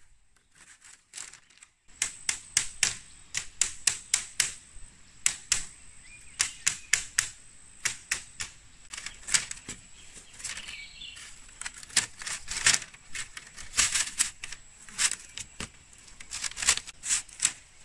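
Rapid, irregular sharp knocks of a tool striking bamboo, several a second, starting about two seconds in.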